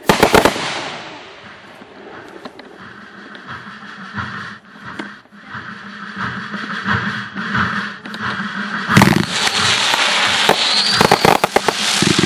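Aerial firework shells bursting with loud bangs. A burst of bangs comes right at the start, then a quieter stretch with scattered small pops. Another loud bang comes about nine seconds in, and a quick cluster of bangs near the end.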